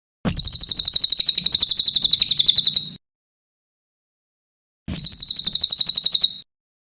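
Cililin songbird singing two rapid, high trills of quick repeated notes, about thirteen a second. The first trill lasts nearly three seconds. After a short pause a second, shorter one follows.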